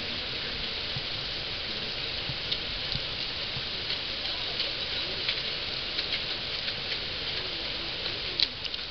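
Heavy rain falling on wet gravel and puddles: a steady hiss with scattered sharp ticks of drops, a few louder ones near the end.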